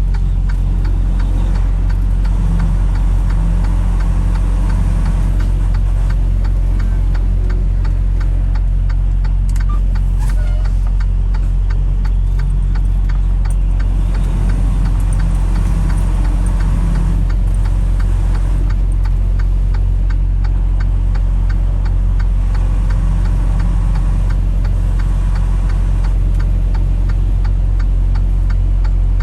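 Vehicle engine running and road noise heard from inside the cab while driving: a loud, steady low rumble with a fast, even ticking throughout.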